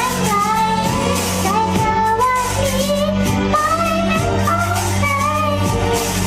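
A child singing a Thai pop ballad with vibrato over instrumental backing with sustained bass notes.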